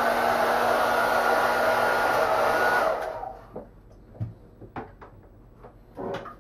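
Hand-held hair dryer blowing steadily with a constant whine, warming the end of a new sewage hose to soften it. It is switched off about three seconds in and winds down, and a few light knocks of handling follow.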